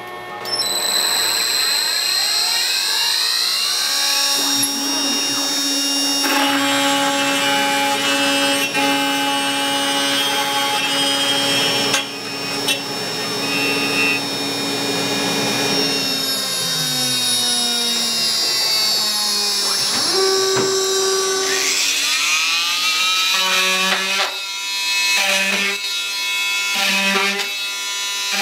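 CNC router cutting sheet stock: a steady whine with tones that glide up and down as the machine moves. Near the end come several short pulses, about one every second and a half.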